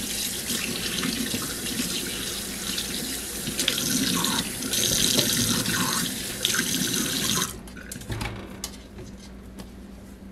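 Kitchen tap running into a stainless steel sink, the stream splashing over raw poultry and hands as it is rinsed, louder about four seconds in. The water shuts off suddenly about three quarters of the way through, leaving a few faint handling sounds.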